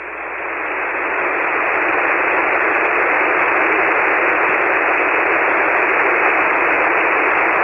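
Hiss of 40-metre band noise through a single-sideband ham radio receiver, with no station talking on the frequency. It swells over the first two seconds, then holds steady.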